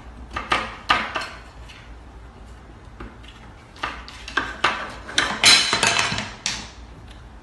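Hard objects clattering and rattling in irregular bursts, a short cluster early on and a longer, louder run in the second half.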